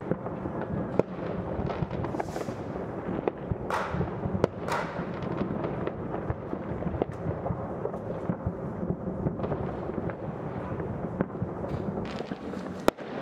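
Fireworks going off all around as a continuous rumble of many overlapping bangs. Sharper single cracks stand out about a second in, around three and four and a half seconds, and just before the end. A few short hissing whooshes come between about two and five seconds.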